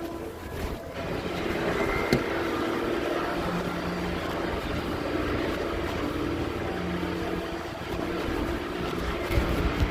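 Sawmill circular saw running, thickening into a steady cutting noise with a hum about a second in, as it goes through wood. A sharp knock comes around two seconds in.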